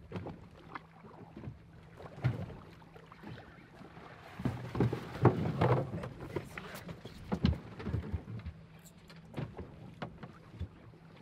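Boat engine idling with a steady low hum, under irregular knocks and thumps of handling on deck that are loudest about five seconds in.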